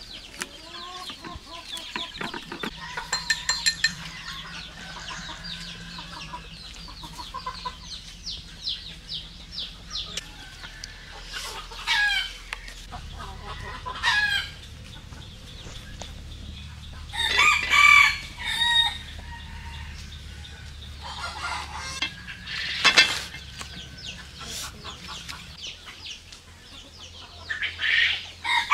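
Chickens clucking, with a rooster crowing several times: loud calls of a second or two each, spaced through the stretch. A run of light clicks early on.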